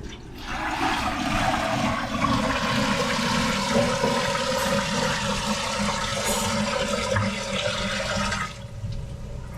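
Water rushing steadily for about eight seconds, then stopping, with a faint hollow tone that sinks slowly in pitch.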